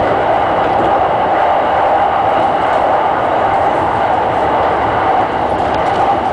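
E217-series electric train running along the line, heard from the front of the train: steady, even rolling noise of wheels on rails, without distinct clicks.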